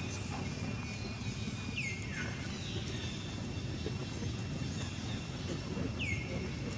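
Outdoor ambience with a steady low rumble. Two short high animal calls slide downward, about two seconds in and again near the end.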